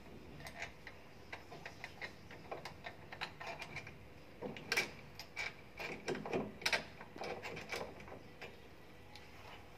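Irregular small metallic clicks and taps as a lock cylinder is fitted back into an armored door's mortise lock and its retaining screw is tightened. The clicks are sharper and more frequent in the second half.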